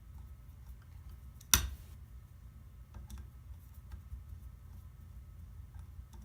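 Light clicks and taps of small metal parts and hand tools being handled while a DeWalt sander is taken apart, with one sharp clack about one and a half seconds in.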